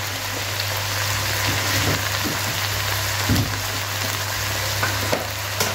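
Diced red onion and garlic sizzling steadily in hot oil in a wok, over a steady low hum.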